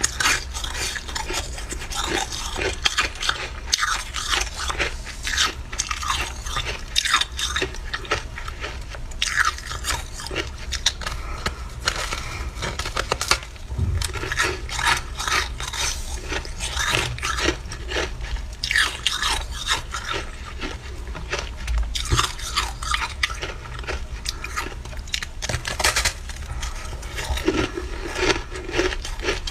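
Crunching bites and chewing of a slab of freezer frost, dense irregular crackles all the way through.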